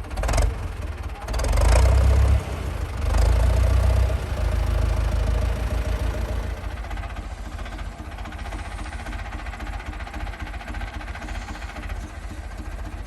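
Old Chrysler industrial gasoline engine running. It is revved up three times in the first four seconds, then settles to a steady idle.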